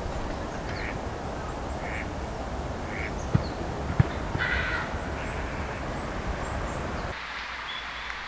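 Ducks quacking: short calls about once a second, then a longer, louder one about four and a half seconds in. Over a steady outdoor hiss come high, thin chirps of small birds and two sharp clicks. The background drops suddenly about seven seconds in.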